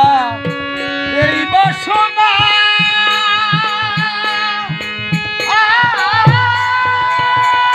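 Bengali Hari sangeet devotional folk music: a melody of long held notes that bend into pitch, over a hand drum beating a steady rhythm, with deeper booming drum strokes from about six seconds in.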